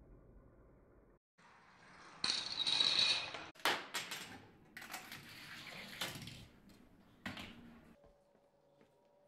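Parts of a home-built Rube Goldberg machine running: a burst of rattling noise about two seconds in, the loudest part, then several sharp clicks and knocks of pieces striking. A faint steady hum near the end.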